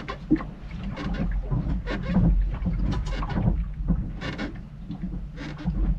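Irregular creaking and knocking from a moored sailboat moving on the water, with a steady low rumble of wind on the microphone underneath.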